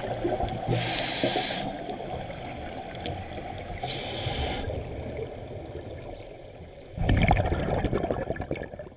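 Scuba regulator breathing heard underwater: two short hissing inhales through the demand valve, then a burst of exhaled bubbles gurgling from about seven seconds in, over a steady low underwater wash.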